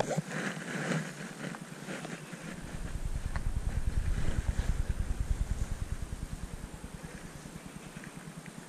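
A low, evenly pulsing engine rumble swells from about two and a half seconds in, is loudest around the middle, then fades away, as a passing motor vehicle does. In the first two seconds there is crinkling from the plastic lure packet being handled.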